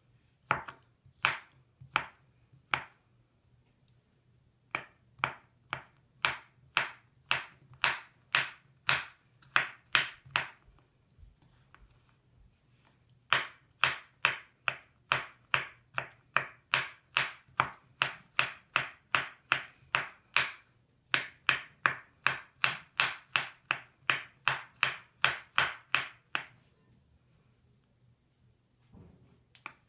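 Kitchen knife chopping a bar of Lush Rainbow Fun into small pieces against a wooden cutting board: short, crisp chops, a few at first, then two long runs of steady chops about two a second with a short pause between them.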